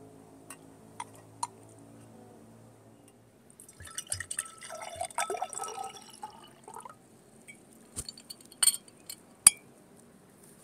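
Liquid poured into a glass for about three seconds, then a few sharp clinks, the loudest near the end.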